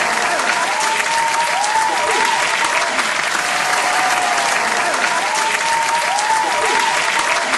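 Audience applause, a dense steady patter of many hands clapping, with a thin high tune in repeating rising-and-falling phrases over it.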